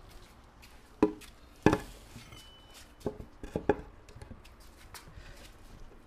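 Wooden cutting board being handled and set down: two sharp knocks of wood on a hard surface about a second apart, then a few lighter knocks.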